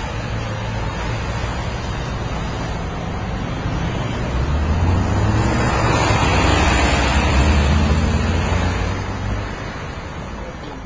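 Road traffic: the steady rush of cars and other vehicles passing, with a low engine rumble. It swells louder in the middle as a vehicle passes close, then fades. Wind buffets the microphone.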